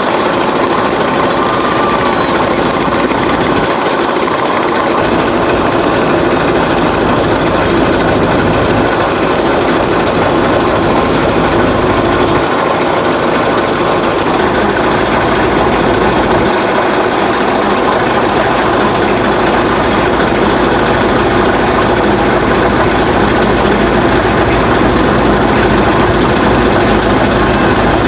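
A boat's engine running steadily at an unchanging pace, loud and close, as heard from on board the moving boat.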